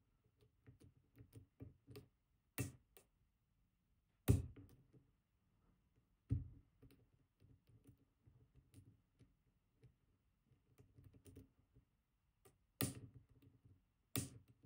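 Hook pick working the main-stack pins of a Robur 2391 safe deposit box lock cylinder against tension from a wrench. Faint metallic ticks and scrapes run through, with about five sharper clicks along the way.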